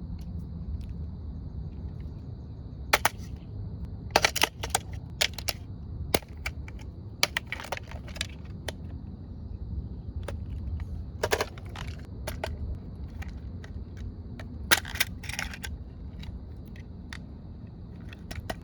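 Remote-control toy excavator's small electric motors whining in a steady high tone, with irregular sharp clicks and clatter from the digger working.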